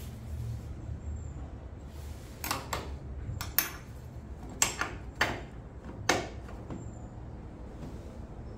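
A handful of sharp clanks and knocks, about five over four seconds, with the first coming about two and a half seconds in, over a low steady hum.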